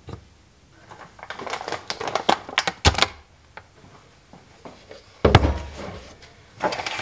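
Containers being set down on a kitchen countertop: a glass coffee jar, a bag of protein powder, a creamer bottle and a plastic milk jug. A run of light clicks and taps, with a louder knock about three seconds in and a heavier thud a little after five seconds.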